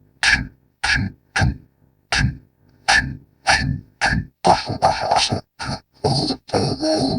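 Designed alien-creature sound effect for a six-legged lizard, layered from processed animal recordings: over a dozen short throaty calls, about two a second. From about halfway the calls come faster and carry a harsh hiss.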